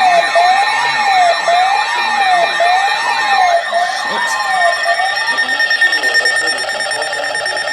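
Electronic siren-style alert tone warbling up and down about once a second. A little after five seconds in it gives way to a steady, high, rapidly pulsing alarm tone, with a sharp click just before the change.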